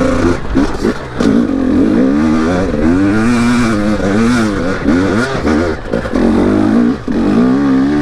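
KTM 250 two-stroke dirt bike engine revving up and falling back again and again under changing throttle on the trail, with brief drops in loudness when the throttle is shut.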